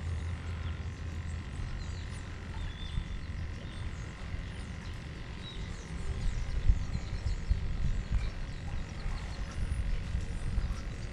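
Open-water ambience under a bridge: a steady low rumble of water and light wind on the microphone, with faint scattered chirps and a few soft knocks of water against the kayak's hull in the second half.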